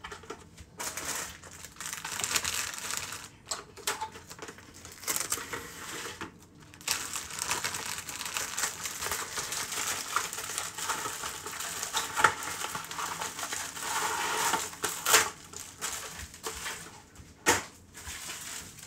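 Kitchen food-prep noise: a steady crinkling, crunching rustle with a few sharp knocks in the second half.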